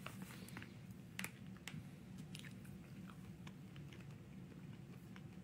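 Faint mouth sounds of a person eating fruit jelly sucked from a small plastic jelly cup: scattered little clicks and smacks, the clearest about a second in.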